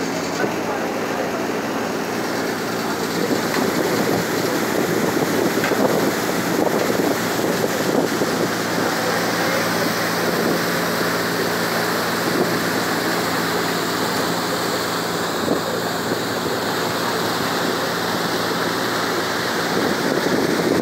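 River ferry under way: a steady low engine hum under the rush of water along the hull, with wind buffeting the microphone.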